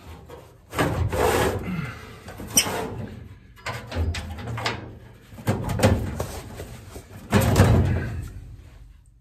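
Scraping, rubbing and knocking as a furnace blower assembly is worked out of its sheet-metal housing along its rails, in about five separate bursts of effort.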